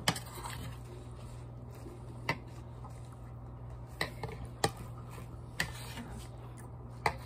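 Metal fork and knife clinking against a ceramic plate while cutting and eating, about six separate sharp clinks a second or so apart, over a steady low hum.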